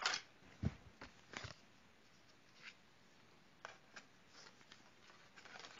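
Faint handling noise: a scattered run of small clicks and knocks, with one soft bump under a second in, as a View-Master reel is changed in the viewer.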